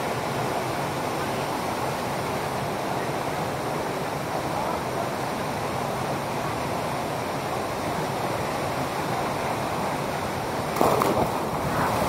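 Steady rush of a waterfall pouring into a rock pool. Near the end, a sudden loud splash as a person dives into the pool.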